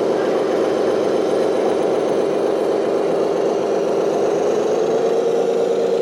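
A small motor running with a steady hum, its pitch rising a little about four and a half seconds in.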